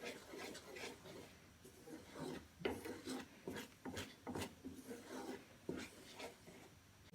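Faint, irregular scraping and rubbing of a spoon stirring thick melted jaggery in a cooking pan, a series of short strokes.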